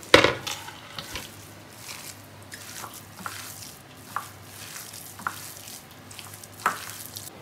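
A hand squishing and mixing a wet mixture of soaked sago pearls and mashed potato in a ceramic bowl. It makes a soft, moist squelching, with a few sharp clicks against the bowl, the loudest just after the start.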